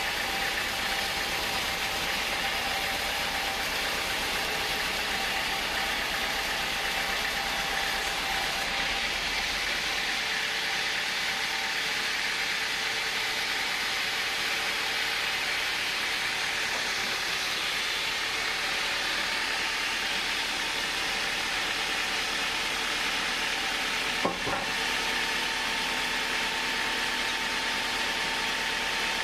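Band sawmill running, its blade cutting lengthwise through a large hardwood log: a steady hiss with a faint whine over it. The deep hum underneath drops away about ten seconds in, and there is one sharp knock about 24 seconds in.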